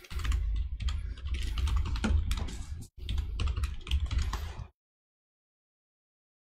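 Fast typing on a computer keyboard: a quick, uneven run of key clicks that stops abruptly about three-quarters of the way through, leaving dead silence.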